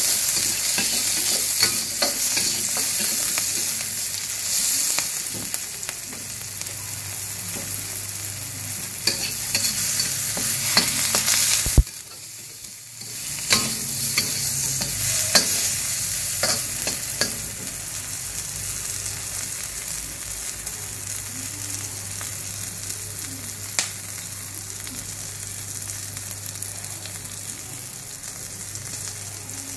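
Shallots, onion, chillies and tomato sizzling in oil in a stainless steel wok, stirred with a metal spatula that scrapes and clinks against the pan. The sizzle drops briefly after a sharp knock about twelve seconds in, then carries on.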